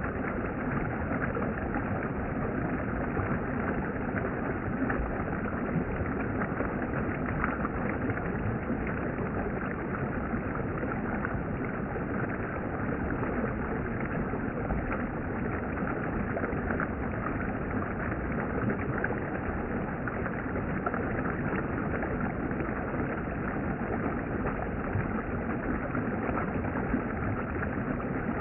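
Steady rushing of a stream's water, an even noise with no distinct events.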